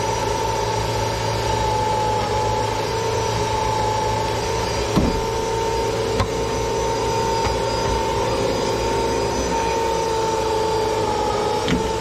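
Electric motor of a sink drain-cleaning setup running steadily with a constant whine and low hum, with a few short knocks from the shaft or pipe.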